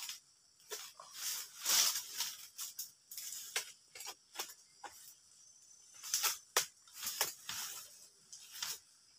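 A long-pole harvesting sickle cutting at an oil palm's frond bases: irregular short rasping strokes and sharp cracks, a dozen or so in a few seconds.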